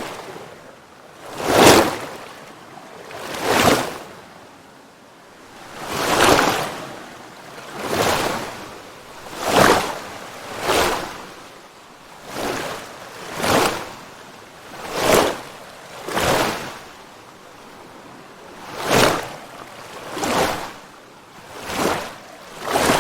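Small sea waves washing in quick, regular swells, roughly one every one and a half seconds. Each swell rises to a hiss and fades away before the next.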